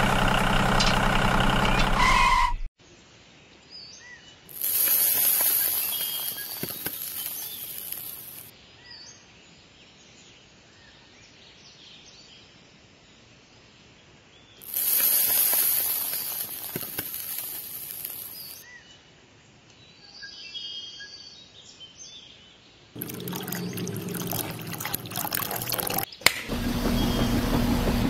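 Dry sand poured from a small plastic bucket into the tin-can drum of a toy cement mixer, twice, each pour a hiss of about four seconds. Near the end the mixer's small battery-powered electric motor starts and turns the drum with a steady hum.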